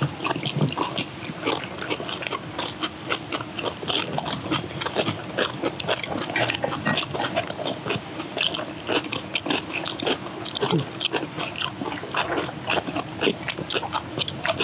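People chewing mouthfuls of kimchi and rice close to the microphones: a dense, irregular run of short chewing and biting clicks.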